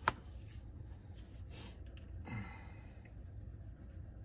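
Quiet room with a steady low hum; a sharp click right at the start, then a person's short sigh about two seconds in.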